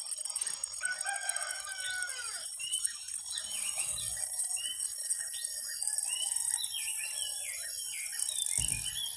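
Roosters and other birds calling repeatedly over a steady high-pitched buzz, with a low thud about four seconds in and another near the end.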